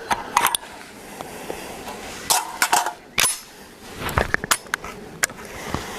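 Derya MK-12 12-gauge semi-automatic shotgun firing: sharp cracks in irregular groups, three in quick succession about two and a half seconds in and another quick cluster past the four-second mark.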